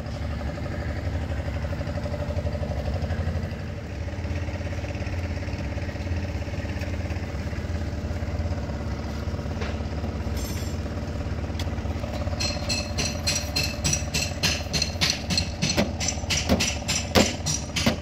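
Mahindra Yuvo Tech+ 405 DI tractor diesel engine idling with a steady low hum. From about twelve seconds in, a run of irregular bright clicks with a ringing edge joins it, several a second.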